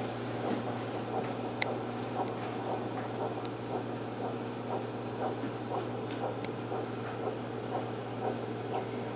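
Steady low equipment hum with faint regular pulses about twice a second and a few sharp clicks, in the background of a dental extraction on a dog.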